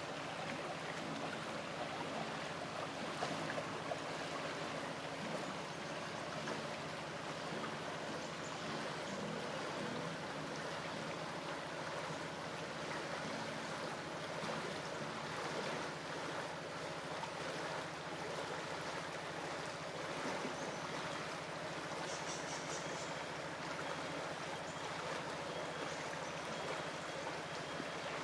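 River water rushing steadily in a fast, full-flowing current.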